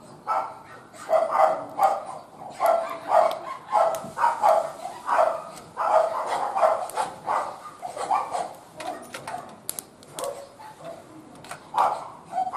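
A dog barking over and over, about two barks a second, thinning out after about eight seconds with one more bark near the end.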